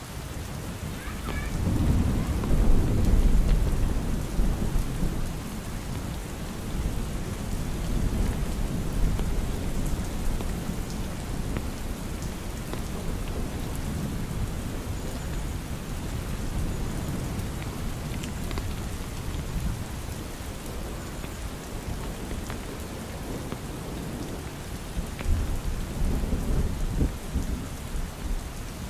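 Steady rain hiss with low, rolling thunder rumbles under it. The thunder is loudest a couple of seconds in and swells again a few times, last near the end.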